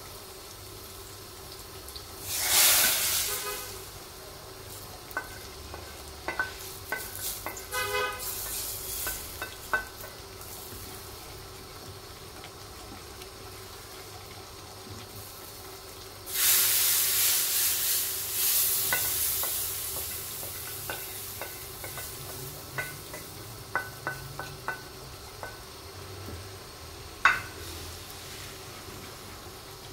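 Hot tadka (tempering oil) poured from a frying pan into a pot of moong dal, sizzling loudly about two seconds in. Then a spoon stirring the thick dal and clicking against the pot, with a second long sizzle about halfway through.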